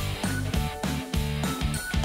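Upbeat rock background music with a steady driving beat and guitar.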